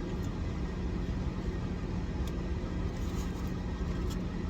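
Steady low rumble with a constant hum, like a car engine idling, with a few faint clicks.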